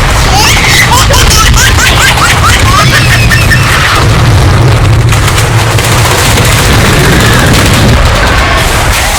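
A loud, unbroken barrage of booming, explosion-like sound effects over a heavy low rumble, with a string of short rising squeals in the first few seconds.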